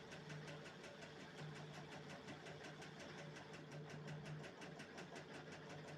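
Electric drill running steadily, spinning a charkhi to wind kite string onto it: a steady motor hum with a fast, even ticking.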